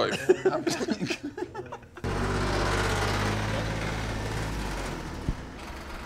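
A voice, then about two seconds in a sudden switch to a utility vehicle's engine running with a steady low hum, easing slightly toward the end. A single knock sounds about five seconds in.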